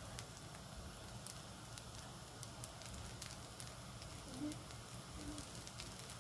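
Rice with onion, capsicum and egg frying in an oiled pan: a faint, steady sizzle with scattered small crackles and pops.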